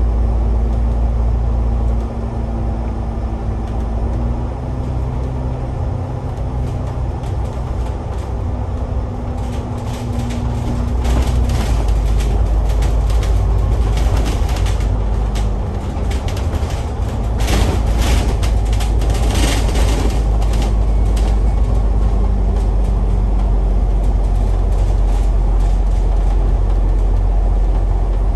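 Alexander Dennis Enviro500 double-decker bus in motion, heard from inside: a steady low rumble of engine and road noise with a droning tone that shifts in pitch, and a spell of rattling and hissing through the middle.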